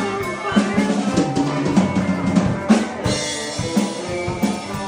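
New Orleans-style party band playing live: electric guitar and bass guitar over a steady drum beat.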